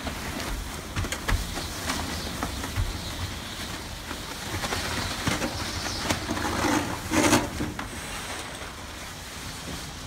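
Blizzard wind gusting through an open sliding door, mixed with rustling of an inflatable costume's nylon fabric and scattered knocks, with a louder burst of noise about seven seconds in.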